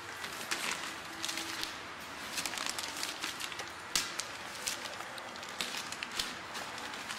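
Plastic bags of soil crinkling and rustling as they are handled and emptied into wooden bins of loose dirt, in an irregular run of short crackles with one sharper tick about four seconds in.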